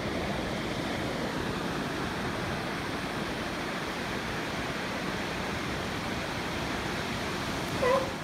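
Steady rush of ocean surf breaking on the beach. Near the end a short, pitched animal call cuts in briefly.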